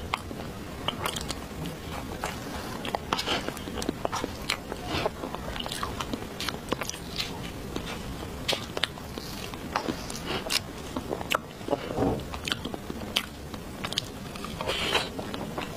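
Close-miked eating sounds of soft chocolate cake: chewing with many short wet mouth clicks and smacks.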